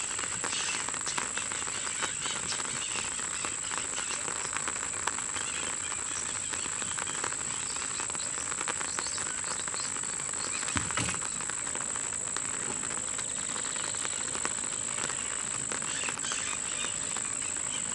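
Steady rain pattering on the lake and bank, with a constant high insect trill, like a cricket, over it. A single dull knock about eleven seconds in.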